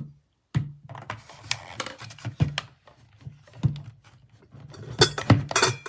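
Compact plastic wall-outlet space heater being handled and pushed into a wall socket: a run of irregular clicks, knocks and rubbing.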